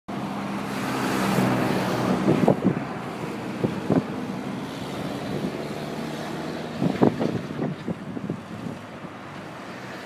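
Heavy construction machinery engine running steadily, with wind on the microphone and a few sharp knocks, the loudest about two and a half and seven seconds in.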